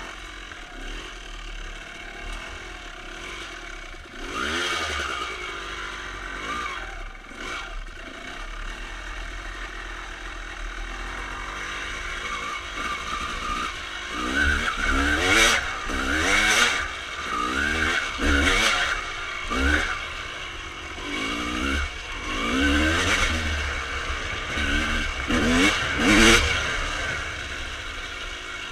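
A 1995 Honda CR250R's single-cylinder two-stroke engine, fitted with Pro Circuit pipes, revving up and down as the bike is ridden. The throttle is blipped once early, then opened and closed in frequent, louder surges from about halfway through.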